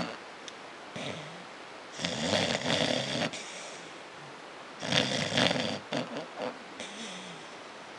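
Beagle snoring in its sleep: two loud snores about three seconds apart, each lasting around a second, with softer snoring breaths between them.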